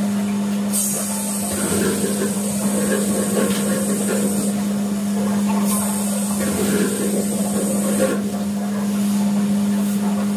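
A steady low machine hum, with two stretches of high hissing, each a few seconds long.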